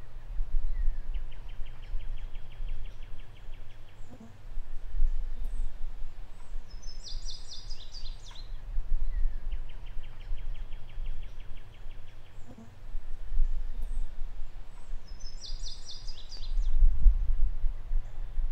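Outdoor park ambience: a steady low rumble with birds singing over it. One phrase is a dry trill of evenly spaced notes lasting about a second; the other is a higher, brighter burst. Each is heard twice.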